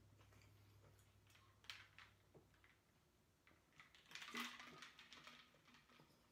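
Near silence: a low hum that stops about two and a half seconds in, a few faint clicks, and a brief soft noise about four seconds in.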